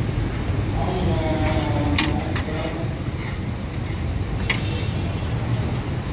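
A metal spatula clicks sharply against a large steel tawa a few times as beef liver is stirred on it. Under it runs a steady low street-traffic rumble.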